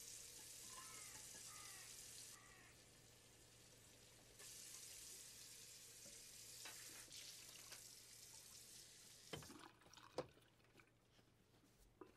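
Kitchen tap running into a sink in two stretches, a steady hiss of water. Near the start a bird chirps three times, and about nine seconds in the water stops with a few knocks and clinks at the sink.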